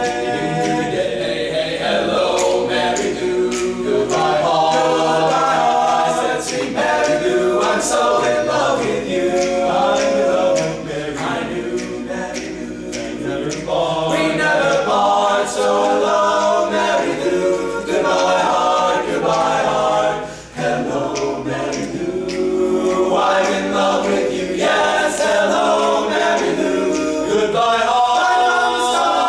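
All-male a cappella group singing in multi-part close harmony, voices only with no instruments.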